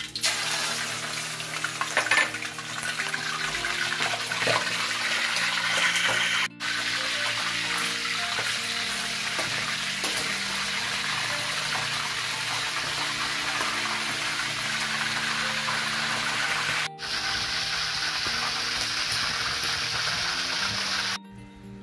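Chicken skin deep-frying in hot oil in a wok: a steady sizzle that starts as the skin drops into the oil, breaks off briefly twice, about six and a half and seventeen seconds in, and stops just before the end. The skin is frying until crispy.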